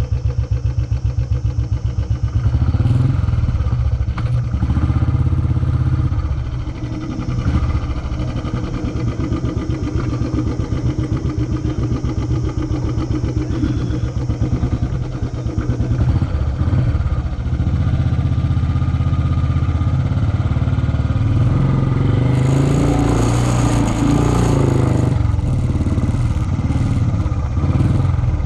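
Royal Enfield motorcycle engine running with a steady, fast low thumping. For a few seconds near the end it grows louder and rougher, with added hiss and rattle.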